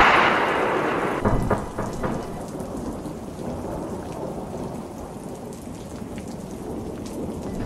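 A thunderclap that fades away over the first second or two, followed by steady rain falling.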